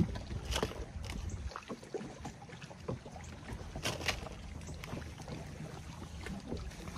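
Water lapping against a small boat's hull with light wind on the microphone; a low rumble fades out about a second and a half in, and a few short knocks sound, the loudest around the middle.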